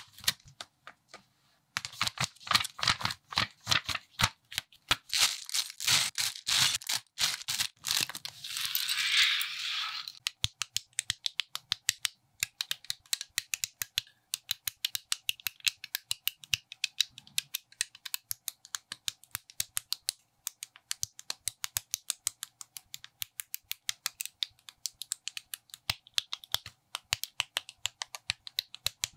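Plastic building bricks being handled and snapped together. For the first several seconds loose pieces and plastic bags rattle and crinkle. From about ten seconds in, a quick, fairly even run of sharp clicks follows as bricks are pressed onto one another.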